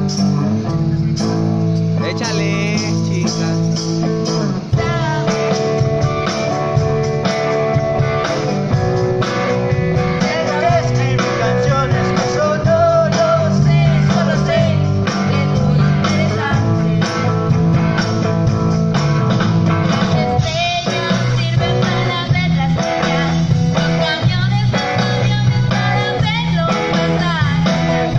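Live band playing through stage loudspeakers: guitar and bass with a singing voice at times, as an audio test of the stage sound.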